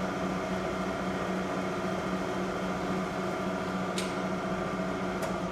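Lagun FTV-1 vertical milling machine's spindle running steadily in high gear, a smooth hum with a steady low tone. Two short clicks come near the end.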